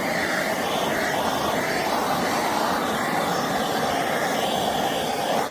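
Chainsaw running under load, its pitch dipping and recovering several times as it cuts into the wood; the sound cuts off abruptly at the end.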